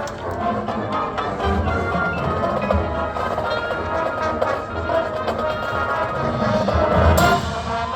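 High school marching band playing its competition show: sustained wind chords over percussion, with a bright crash about seven seconds in.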